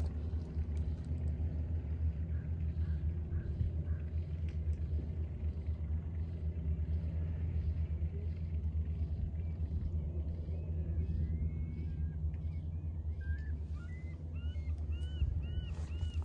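A steady low rumble, with a bird's short chirps coming in about two a second in the second half, growing clearer near the end.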